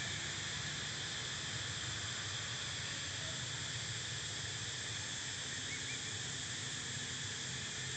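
Steady drone of an insect chorus, even and unbroken, with a faint short chirp about six seconds in.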